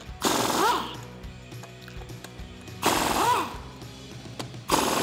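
Pneumatic impact wrench spinning off wheel lug nuts in three short bursts, each under a second long, its whine rising and then falling in pitch with each burst.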